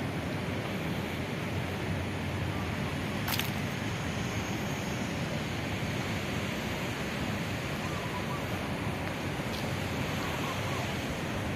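Steady outdoor background roar of an open street-side path, with a single sharp click about three seconds in.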